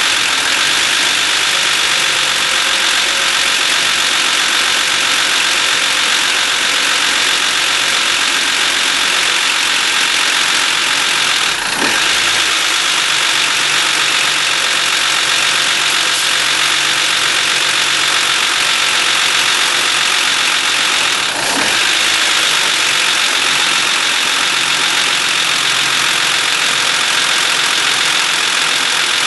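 BMW E39 engine running steadily with a loud, high-pitched mechanical noise that the owner cannot place and suspects comes from the lifters or the VANOS camshaft adjuster. Two brief clicks break the sound about twelve and twenty-one seconds in.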